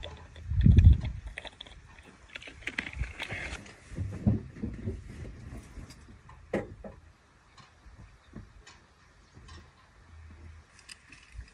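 Gusts of wind rumbling on the microphone, loudest about a second in and again around four seconds, with scattered light clicks from the rope-and-pulley rigging; quieter in the second half.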